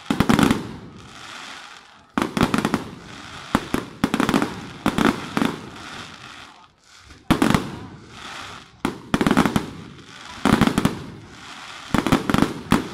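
Aerial fireworks going off in volleys, a group of sharp bangs every second or two, with the glittering star bursts crackling between them. Near the end comes a rapid string of reports.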